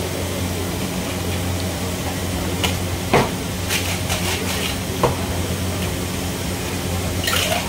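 Steel tumblers clinking and knocking several times while a soda drink is mixed, over a steady hum and hiss.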